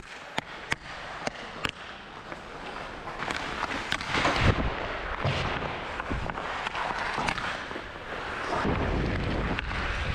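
Ice hockey warmup sounds: a run of sharp cracks from pucks being shot and struck by sticks, with the scraping of skate blades on the ice, louder in stretches a few seconds in and near the end.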